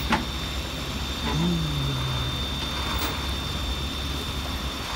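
Flatbed tow truck's engine idling with a steady low rumble, with a brief low falling sound about a second and a half in.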